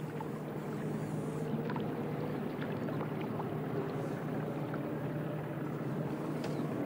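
Background of an old television broadcast: a steady low hum over a noisy hiss, with scattered faint clicks.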